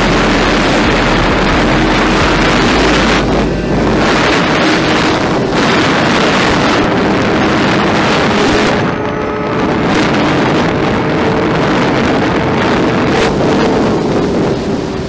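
Sport motorcycle engine running at speed under heavy wind noise on the microphone. The engine note climbs slowly in pitch over the second half, with a short dip about nine seconds in.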